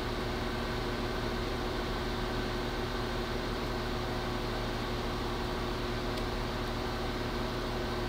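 Electric motor running with a steady hum and a constant whine, unchanged throughout.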